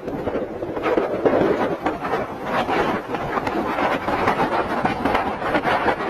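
Hurricane wind and rain on an offshore oil rig: a loud, dense rush of noise with constant irregular rattling and knocking that rises and falls in gusts.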